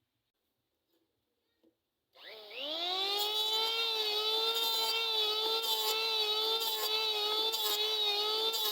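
Electric grinder motor switched on about two seconds in, spinning up with a rising whine, then running steady at full speed, with a short hiss about once a second.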